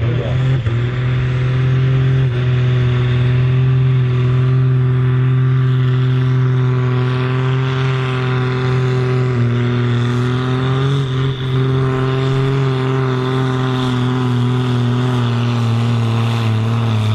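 Ford TW-25 tractor's six-cylinder turbo diesel running at full throttle under heavy load while pulling a sled, a loud, steady engine note held at nearly one pitch, wavering briefly about ten seconds in.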